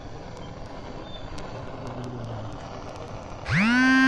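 A steady background hiss, then, about three and a half seconds in, a loud horn-like tone that swoops up in pitch and holds on one steady note.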